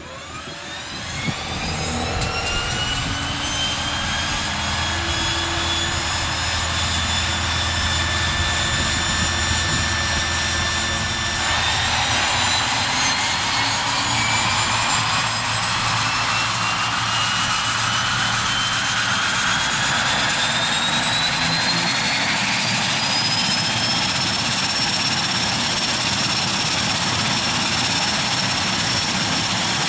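Airplane engine sound effect: a whine over a steady rush that winds up quickly and levels off in the first few seconds, then climbs again from about eleven seconds in and settles at a higher pitch near the end.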